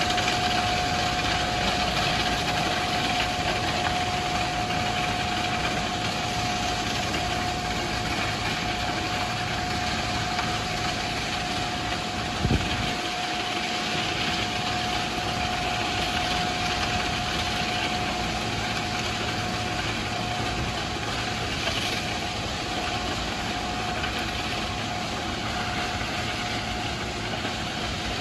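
Ballast regulator running and working the track ballast: a steady engine and rushing noise with a steady whine through most of it. There is a single knock about halfway, and the sound fades slightly as the machine moves off.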